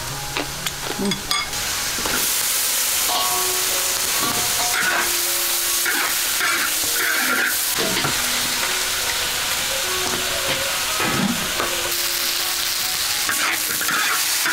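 Greens stir-frying in a large iron wok: after a few light clicks, a steady loud sizzle begins about two seconds in and holds, with the metal spatula scraping and clanking against the wok now and then.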